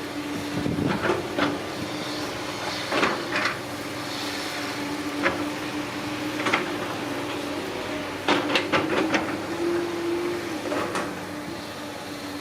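Excavator working: a steady engine and hydraulic hum, with irregular metallic clanks and knocks and a quick run of them near the end.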